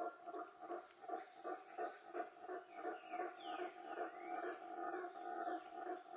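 Animal calls repeating evenly about three times a second, with a few higher falling whistled calls about three to four seconds in.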